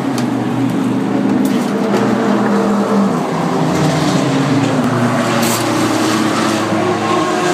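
Race car engine running steadily in the pit lane, its pitch shifting slightly about three seconds in. A short, sharp high hiss comes about five and a half seconds in.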